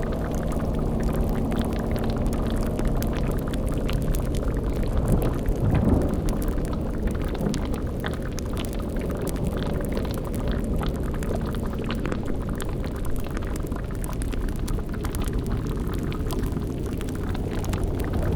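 Layered spooky sound-effect ambience: a steady low rumbling drone with held eerie low tones, over bubbling like a boiling cauldron with fine crackling. A short low growl rises about five to six seconds in.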